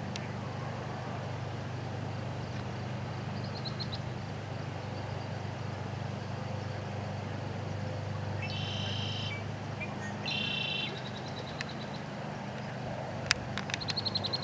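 A steady low motor-like hum, with high-pitched bird chirps and peeps over it: a short run of chirps, two longer trilling calls near the middle, and a quick series of clicks and chirps near the end.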